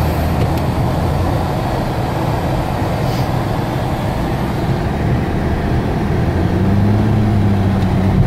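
Mitsubishi Eclipse engine running, heard from inside the cabin while the car drifts on snow; about six and a half seconds in the engine note rises and holds higher as the revs go up.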